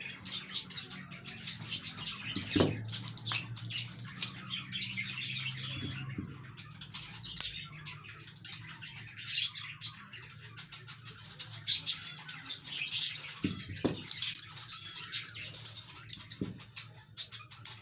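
Cage birds chirping and tweeting over and over, many short high calls scattered throughout, over a steady low hum.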